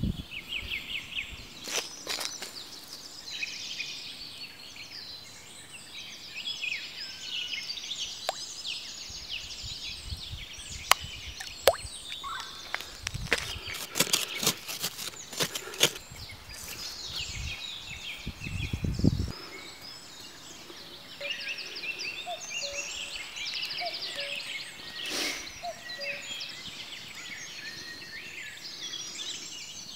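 Small birds chirping and singing continuously. Through the middle stretch come knocks and scraping from a wooden stick digging into loose soil.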